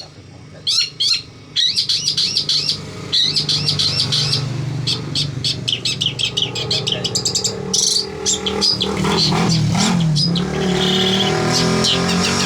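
Long-tailed shrike (cendet) singing: rapid runs of sharp, high chirps and trills that start about a second and a half in and go on through. A vehicle engine hums underneath and grows louder in the second half.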